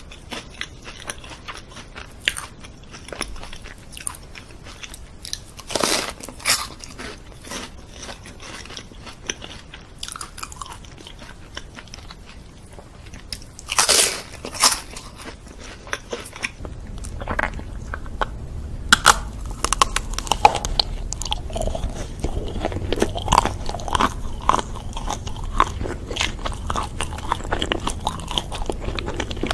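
Close-miked eating: crunchy bites and chewing, with two louder crunches about 6 and 14 seconds in. From about halfway on the chewing gets louder and fuller.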